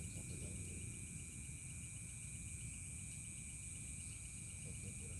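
Crickets and other night insects calling steadily: a fast pulsing trill and a higher continuous buzz, over a low rumble.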